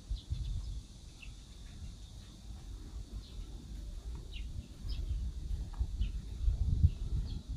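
Scattered short bird chirps over a low, uneven rumble that grows louder near the end.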